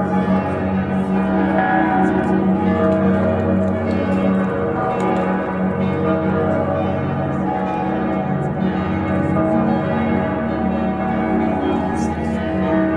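Many church bells ringing at once, their tones overlapping into one continuous, dense peal without a break.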